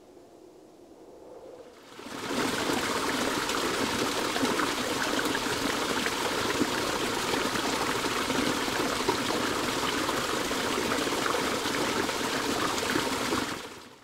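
Rushing, splashing water, steady and close. It starts suddenly about two seconds in and stops abruptly near the end.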